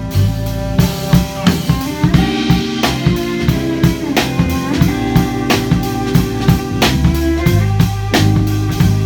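Drum kit playing a hip-hop groove of bass drum, snare and rimshots, with bass and cello holding sustained notes underneath.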